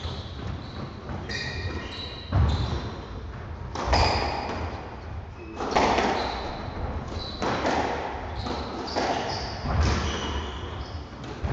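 Squash rally in a large hall: the ball is struck by rackets and smacks off the court walls, making sharp echoing hits every second or two that start about two seconds in.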